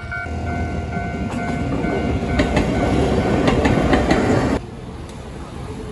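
A train passing close by, its rumble growing louder, with sharp wheel clacks over the rail joints. A steady ringing tone sounds under it. The noise cuts off abruptly about four and a half seconds in.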